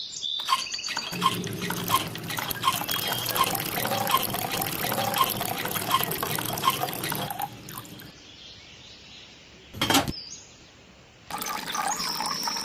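Water gushing and splashing from a miniature hand pump, pulsing about twice a second as it is worked, then stopping. A single sharp click follows later.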